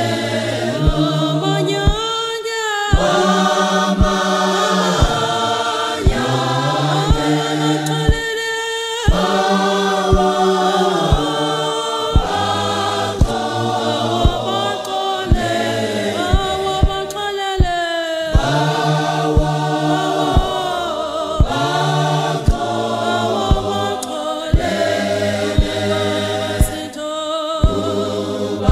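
Gospel choir of men and women singing together in parts, over a steady beat of sharp hits about three every two seconds.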